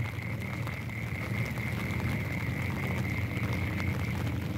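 A chorus of frogs croaking steadily over a low, even rumble.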